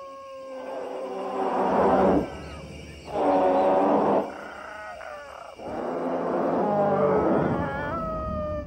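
Dinosaur vocal sound effects for stop-motion animation: three long, pitched animal calls. The second is shortest at about a second, and the last is longest at about three seconds.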